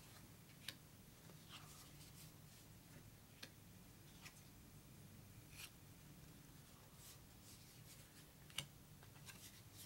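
Scattered faint ticks and light scrapes of thin cardboard map pieces being lifted off a stack and laid down on a wooden tabletop, over near-silent room tone.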